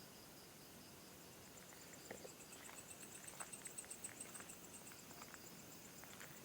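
Faint insects chirping in a high, rapid pulsed trill, with a few soft clicks.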